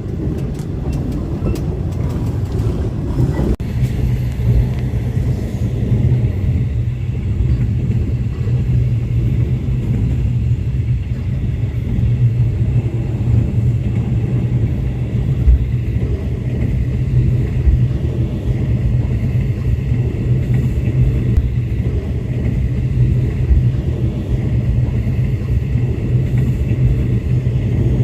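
Steady low rumble of a diesel-hauled passenger train running along the track, heard from inside the coach, with a few light clicks or rattles in the first few seconds.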